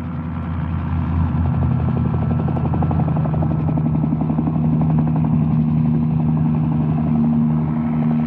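Rescue helicopter running, its engine tone held steady under the rapid beat of the rotor blades, growing louder about a second in.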